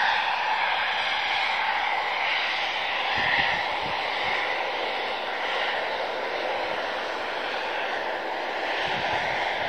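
Diamond DA42 twin-engine propeller aircraft at takeoff power on its takeoff roll and lift-off: a steady engine and propeller drone that slowly fades.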